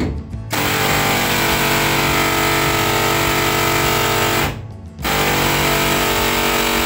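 Pneumatic air hammer with a punch bit hammering rivets out of a school bus's steel side wall from the inside. It runs in two long bursts, with a brief stop about four and a half seconds in.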